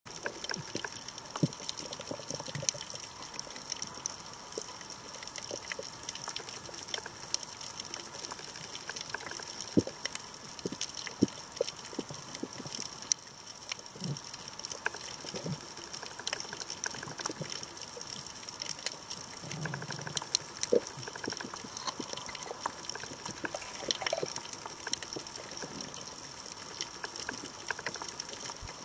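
Underwater reef ambience picked up by a compact camera held underwater: a steady hiss with a constant high whine and frequent scattered crackling clicks, and a few brief low knocks in the middle.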